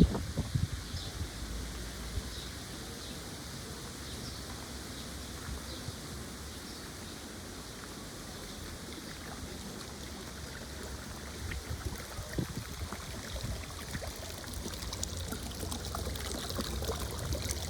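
Water running steadily in a stream, an even rushing trickle. A few low thumps come at the very start, and faint short chirps sound now and then above the water.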